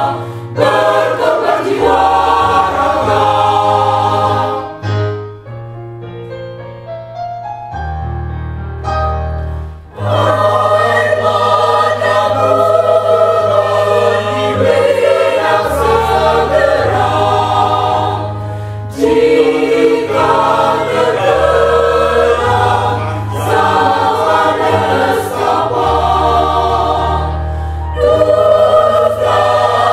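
Mixed choir of men's and women's voices singing a piece in parts, over a sustained low bass line that changes note in steps. The singing drops to a quieter, thinner passage about five seconds in, then swells back to full voice about ten seconds in.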